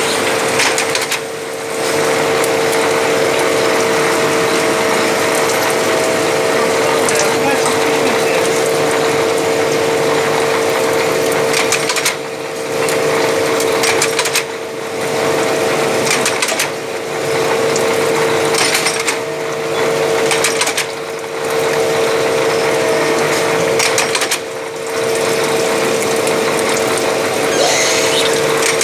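Index 25 automatic lathe running, turning 303 stainless steel under a flood of cutting oil: a steady mechanical clatter with a constant whine. The level dips briefly every two seconds or so in the second half.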